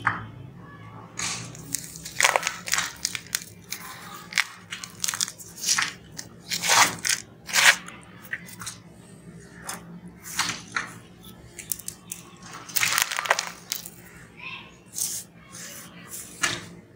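Hands squeezing and crumbling damp sand-cement mix and small stones in a plastic basin, giving irregular gritty crunching as clumps break and grit falls back. A faint steady hum runs underneath.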